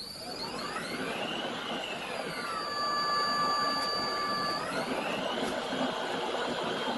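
Lathe's electric motor run from a homemade Vosmikrut frequency converter, its whine rising in pitch as the output frequency is turned up. The pitch holds steady for about two seconds midway, around 32 Hz output, then rises again toward 60 Hz.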